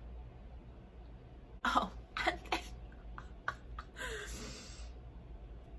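A woman coughing a few short times about two seconds in, followed by a couple of faint clicks and a short breathy hiss.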